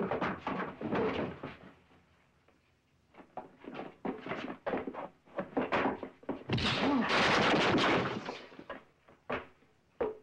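Fist-fight sound effects: a quick run of thuds and knocks from blows and scuffling, with a louder, longer noisy stretch about six and a half seconds in that lasts nearly two seconds, then a few single knocks.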